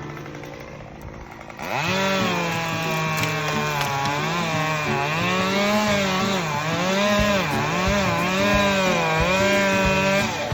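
A chainsaw revs up sharply about two seconds in, then runs at high speed, its pitch dipping again and again as the chain bites into wood. Its pitch drops just before the end.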